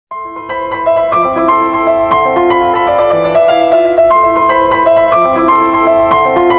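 Sped-up pop song intro: a piano plays a quick melody of steady notes with no vocals or drums, coming in softer for the first second before settling at full level.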